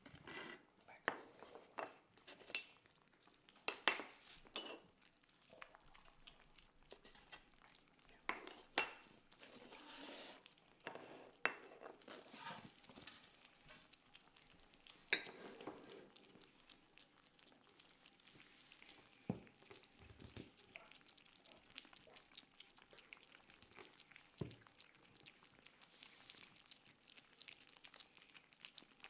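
Small ceramic plates clinking sharply as they are set down and shifted on a wooden tray, about a dozen clinks through the first half, then two duller knocks later, with kittens faintly eating wet food from the plates.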